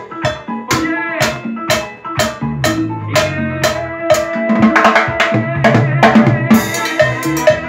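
Timbales and a mounted cowbell struck with drumsticks in a steady beat of about two strokes a second, busier near the end, over recorded music with a bass line playing from a speaker.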